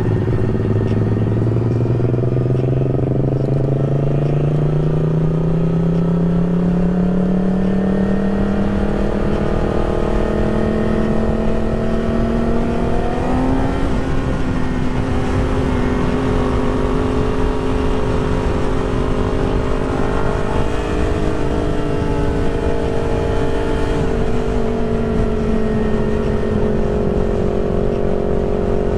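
2020 Yamaha YZF-R6's inline-four engine under way: its note climbs slowly over the first dozen seconds as the bike gathers speed, then holds nearly steady at cruise. Wind rushes heavily over the microphone throughout.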